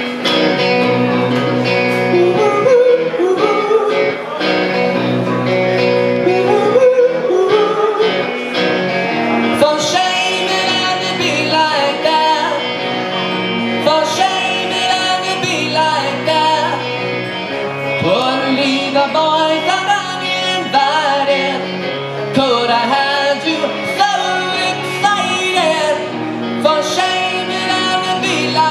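A man singing live into a microphone over guitar accompaniment.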